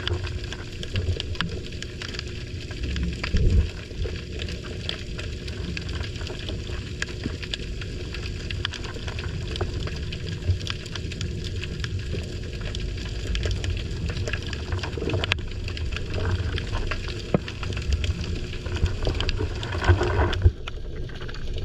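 Underwater sound picked up by a GoPro lowered on a line beside a pier piling: a steady low rumble of moving water with a constant scatter of faint crackling clicks. A louder knock comes about three and a half seconds in, and a couple more near the end.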